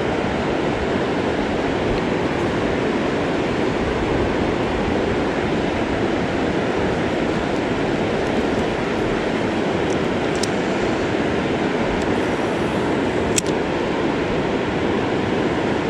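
Steady rush of river water running over a shallow riffle, with a single sharp click near the end.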